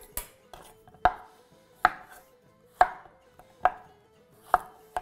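Chef's knife slicing a zucchini on a bamboo cutting board: a series of sharp knocks of the blade on the board, about one a second.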